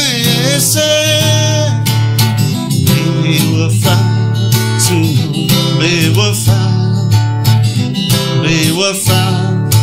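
Steel-string acoustic guitar strummed steadily in chords, with a man's singing voice carrying the melody over it at times.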